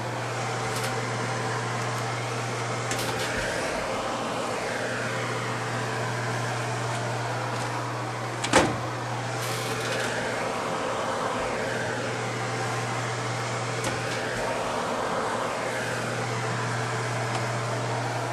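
Laundry machine running with a steady low hum and a shifting swishing noise, with one sharp knock about eight and a half seconds in.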